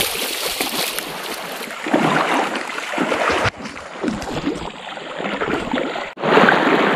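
Rushing, splashing water of a shallow jungle river as people wade and walk through it. The sound breaks off abruptly twice, about halfway through and again near the end.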